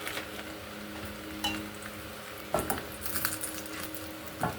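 Kitchen utensils clinking and knocking against a pan and dishes, a few scattered strikes with a quick run of clinks past the middle, over a steady low hum.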